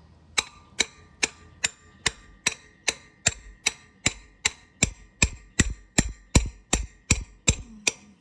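Hammer striking a tight-fitting steel driver about two and a half times a second, some twenty even, ringing metal blows. It is driving packed wet bread into the bore behind the pilot bearing so the pressure pushes the bearing out, and the bearing is starting to move.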